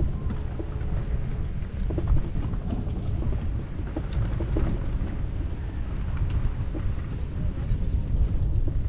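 Wind buffeting the microphone: a heavy, fluttering low rumble, with scattered light knocks over it.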